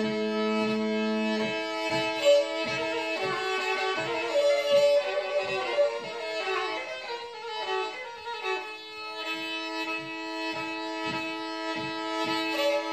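Black Sea kemençe played solo with the bow: a quick melody over steady drone notes sounding on the neighbouring strings.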